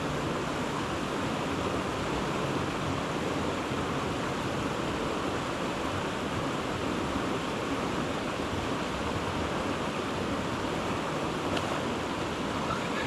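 Creek water rushing steadily over a shallow, rocky riffle.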